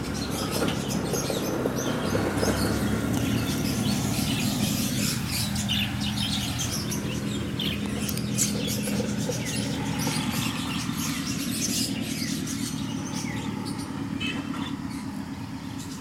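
Parrots in the aviaries chirping and calling in many short, sharp notes, over a steady, louder low mechanical hum.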